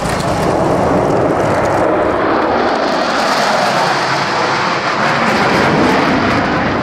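Military jet aircraft flying past: loud, continuous jet engine noise that grows brighter and harsher about midway, then eases slightly near the end.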